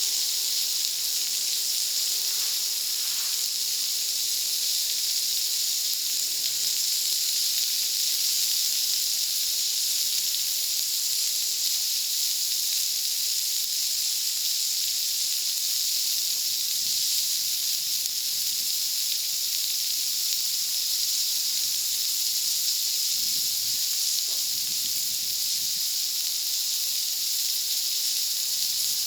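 Food sizzling on a wood-fired plancha: a steady, unbroken high hiss.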